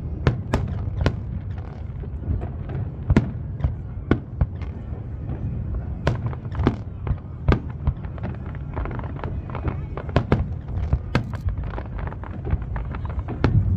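Aerial fireworks going off: a continuous run of sharp, irregular bangs and cracks, several in some seconds, over a steady low rumble.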